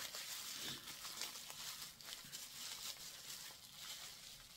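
Faint rustling and crinkling of paper wrapping being handled and unfolded.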